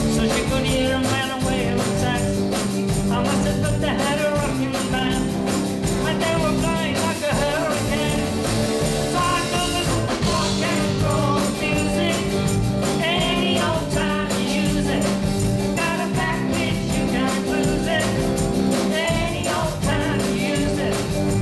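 Live rock and roll band playing: a woman singing lead over electric guitars and a drum kit with a steady beat.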